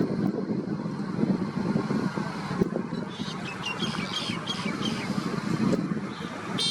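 Steady rumble of road traffic. About three seconds in there is a quick run of short high chirps, and right at the end a brief high-pitched toot like a vehicle horn.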